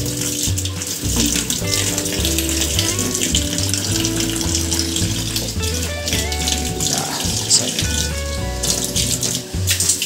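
Water pouring into a washing machine's wash tub and splashing on the pulsator as the tub is rinsed clean, with a steady hiss. Background music with a regular bass beat and a melody plays over it.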